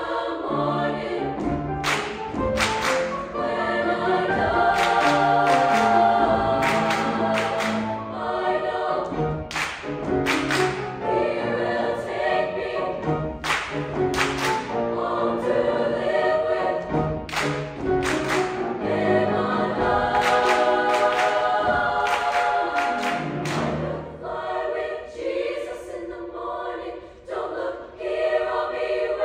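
High school treble choir singing a gospel spiritual arrangement in several parts, with piano accompaniment. Near the end the low accompaniment falls away, leaving the voices more exposed.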